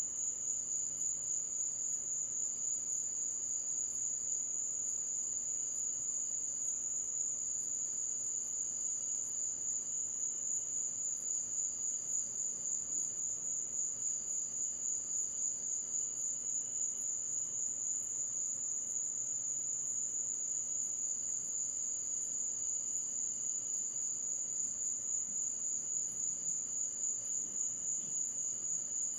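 Night insect chorus trilling steadily at a high pitch, with a fainter second trill coming and going.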